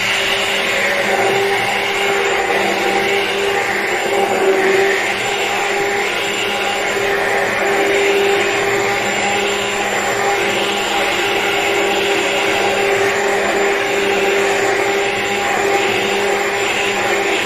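Hand-held immersion blender running steadily in a pot of warm milk, its motor holding one even pitch as it churns the liquid. It is blending cream and yogurt starter into the warmed milk to make yogurt.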